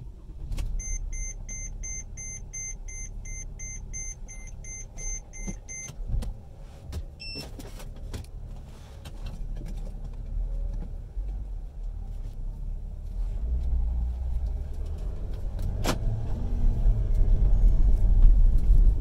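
Inside a Mercedes-Benz diesel car: an electronic warning chime repeats quickly, about three times a second, for roughly five seconds. Then the low engine and road rumble of the car being driven grows louder, with a single sharp click near the end.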